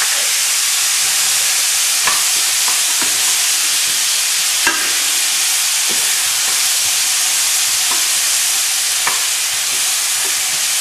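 Pytt i panne (diced potato hash) frying in butter in a pan: a loud, steady sizzle. A wooden spatula stirring the food scrapes and knocks against the pan now and then.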